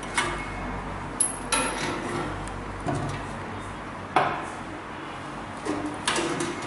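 Rotary evaporator parts being handled during assembly: about seven short, sharp knocks and clinks of hard parts being set down and fitted, spread over several seconds.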